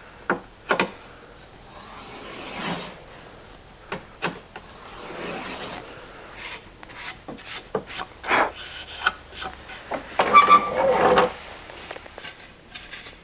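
Block plane shaving the edges of a wooden moulding by hand: repeated short rasping strokes of the blade over the wood, with sharp clicks and knocks between them and a quicker run of strokes in the middle.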